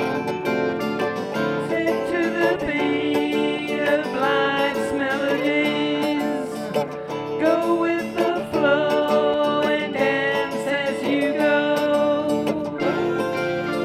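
Country-style music with plucked acoustic guitar, playing continuously.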